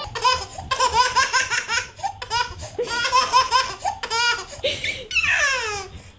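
A baby laughing hard, in rapid high-pitched bursts of belly laughter one after another, with a long falling squeal of laughter near the end.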